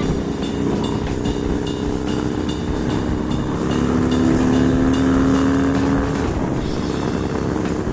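Harley-Davidson Dyna Street Bob's air-cooled V-twin running hard under way. It gets louder for a couple of seconds around the middle, as the bike is pushed through its new chain-drive gearing.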